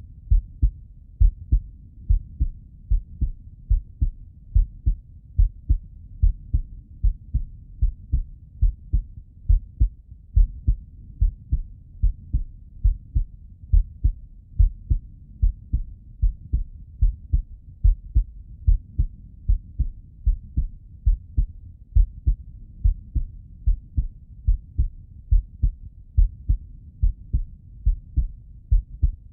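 A man's heartbeat heard through the bell of a Littmann stethoscope: steady, evenly spaced low lub-dub thumps with a faint hiss between beats.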